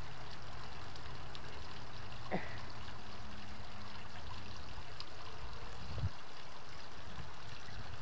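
Water running steadily through the narrow stone-edged channel of a man-made backyard waterfall and stream.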